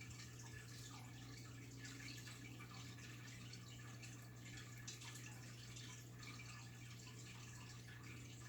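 Faint aquarium water trickling and dripping over a steady low hum, typical of a tank's filter pump and its outflow.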